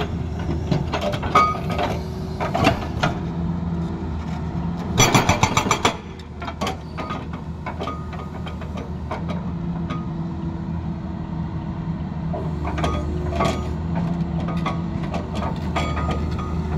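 Tata Hitachi excavator's diesel engine running steadily while its hydraulic rock breaker hammers stone in rapid blows, with the densest burst of strikes about five seconds in. Between bursts the engine keeps running, with scattered knocks of rock.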